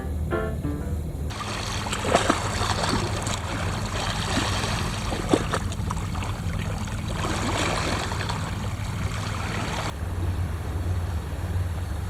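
Sea water washing and splashing over shore rocks, starting about a second in and cutting off suddenly near the end, over a steady low rumble of wind on the microphone. Faint piano music ends in the first second.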